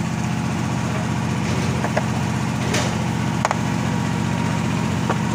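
An engine running steadily at idle, a constant low hum, with a few light metallic clicks as the parts of a hydraulic pump regulator are handled.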